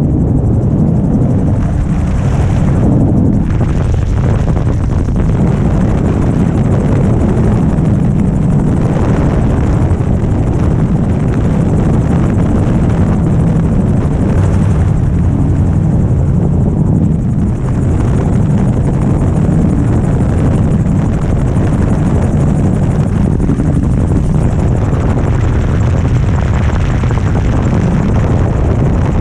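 Magni gyroplane in flight: the engine, propeller and rotor running steadily with wind rush over the airframe. It is loud, with a brief small dip about two-thirds of the way through.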